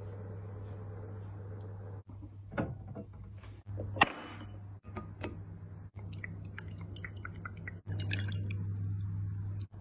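An ice ball clinks sharply against a glass tumbler as it is dropped in about four seconds in, the loudest sound. From about eight seconds a drink from a can is poured splashing into the glass over the ice. A steady low hum runs underneath.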